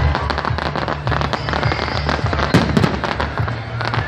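Fireworks display: a dense, rapid run of sharp cracks and bangs from bursting shells over a steady low rumble.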